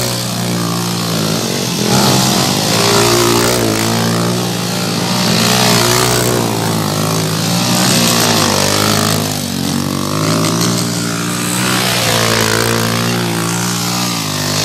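Dirt bike engine revving up and down again and again, its pitch rising and falling, as the bike is spun in tight circles on loose dirt.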